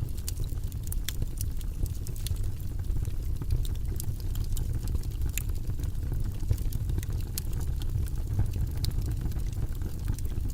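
Fire burning in a fireplace, crackling: scattered sharp pops and snaps, several a second, over a steady low rumble of the flames.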